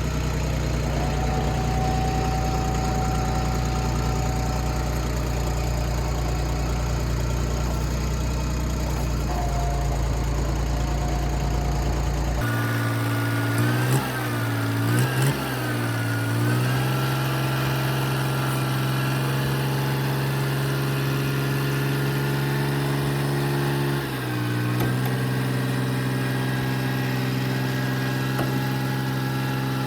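Engine running steadily under load while pulling a hay feeder on skids by chains. About twelve seconds in the sound changes abruptly, then the engine speed rises and falls briefly, and it dips for a moment near the middle of the second half.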